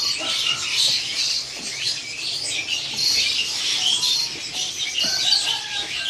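Many caged songbirds chirping and calling at once: a dense, continuous chatter of short high notes.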